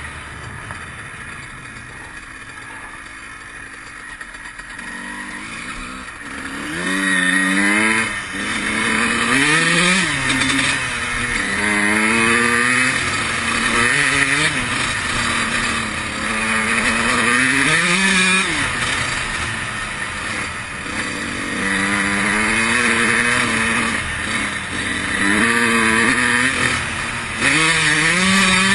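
2003 Honda CR125's 125 cc two-stroke single engine while riding. It runs low and fairly steady for the first several seconds, then revs up again and again, its pitch climbing and dropping off about every two seconds, with rushing wind noise over it.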